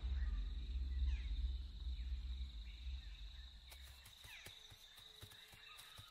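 Tropical forest ambience: a steady high-pitched insect drone, with a few faint bird calls and a low rumble that fades away over the first few seconds. A few soft clicks come in the second half.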